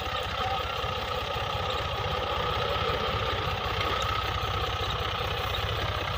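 Fiat tractor's diesel engine running steadily at low speed, a fast even chugging with no change in pace.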